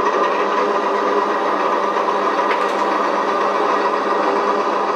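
Sound module of a radio-controlled T-34 model tank playing a steady diesel engine idle through its small onboard speaker, with no deep bass.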